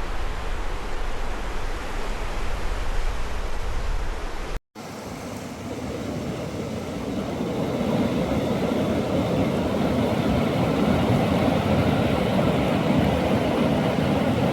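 Rushing mountain river: a steady roar of fast-flowing water. It breaks off for a moment about four and a half seconds in, then comes back and grows louder.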